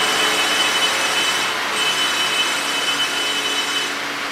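Heavily loaded multi-axle lorry running downhill, its engine and tyres making a steady rumble with a thin high whine over it, slowly fading as it moves off.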